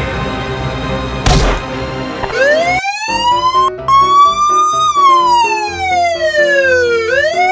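Cartoon police car siren wailing: one slow rise, a long slow fall, then rising again near the end, over background music. A short noisy hit comes about a second in, before the siren starts.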